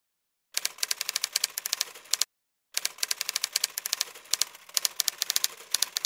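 Typewriter keys clacking in rapid runs of strikes, a typing sound effect for text appearing on screen. There are two runs, with a brief break at about two seconds.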